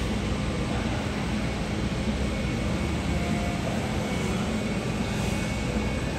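Jet airliner's engines running, a steady continuous rush of noise with a low rumble underneath.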